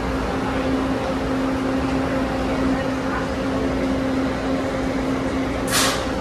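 TTC T1 subway train standing at the platform with its equipment running: a steady hum with a constant low tone. A short hiss comes near the end.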